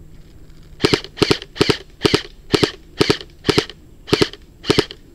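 An airsoft rifle firing single shots in steady succession, about two a second, starting about a second in. Each shot is a sharp crack.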